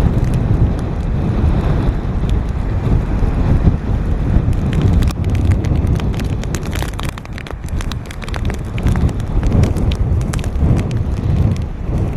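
Strong hurricane wind buffeting the microphone in a heavy, gusting rumble that rises and falls. From about four seconds in, many sharp ticks sound through it.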